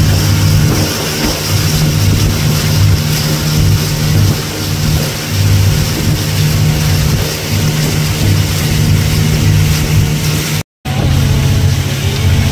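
Motorboat engine running steadily under way, with a constant rush of wind and water over it. The sound cuts out for a split second near the end, then carries on.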